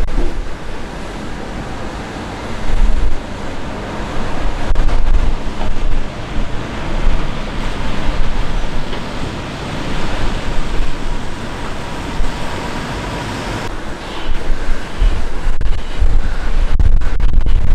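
Volvo L180H wheel loader's diesel engine running as it drives and pushes its wide bucket into a pile of sugar beets, under a steady rushing noise. Gusts of wind rumble on the microphone.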